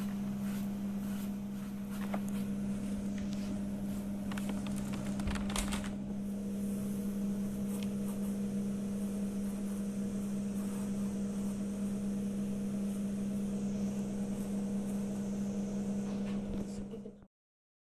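A steady low hum with a few fainter higher tones over it. Several light knocks and taps come between about four and six seconds in, as pieces of semolina flatbread are handled on a wooden board. All sound cuts off suddenly near the end.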